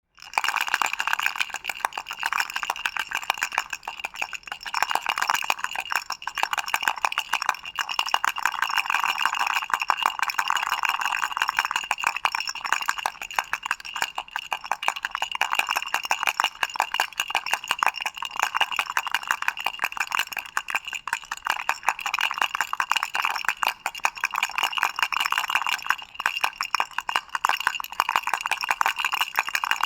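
Doraemon toy baby rattle shaken continuously, a fast, steady clatter of small rattling clicks.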